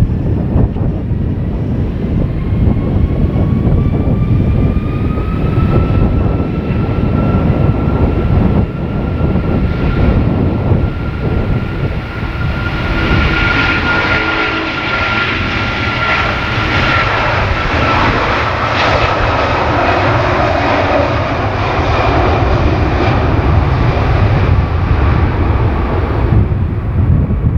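Airbus A330 twin-engine jet airliner on its takeoff run. The engines spool up with a whine that rises in pitch over the first few seconds and then holds steady, and the engine noise grows fuller from about halfway as the aircraft accelerates towards lift-off. A low rumble, partly wind on the microphone, runs underneath.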